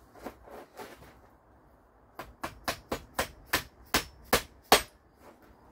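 Hammer blows on the steel parts of a Model A front axle assembly: a couple of light taps, then a quick run of about ten sharp strikes, roughly four a second, as a part is driven into place.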